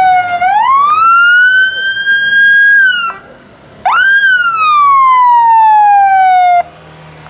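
Ambulance's electronic siren wailing close by as it drives past, loud. It climbs slowly, holds high, breaks off briefly about three seconds in, then jumps up again and falls slowly before cutting off abruptly near the end.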